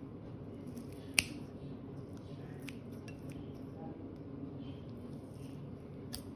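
Metal knife and fork working air-fried chicken on a ceramic plate: one sharp clink of metal on the plate about a second in, then a few lighter ticks, over a steady low hum.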